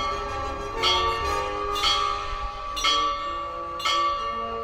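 A bell struck five times, about once a second, each strike ringing on into the next.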